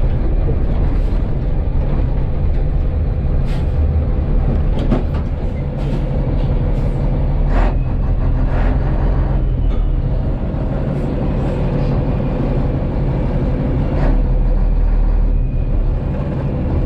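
Rába S16 racing truck's D2156 inline-six diesel engine running hard, heard from inside the cab as a loud, steady, deep rumble. Sharp clicks and knocks break in now and then.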